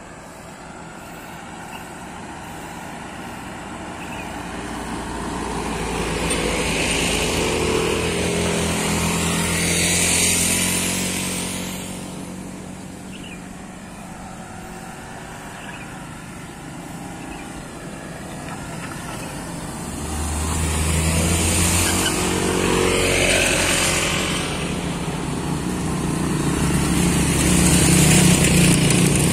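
Cars driving past on a steep hill road one after another, their engines and tyres rising and fading, followed near the end by a group of motor scooters passing with engines running, the loudest part of the stretch.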